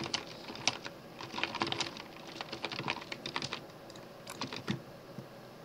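Typing on a computer keyboard: a quick run of keystrokes over the first two seconds, sparser after, and a few more clicks a little after four seconds in.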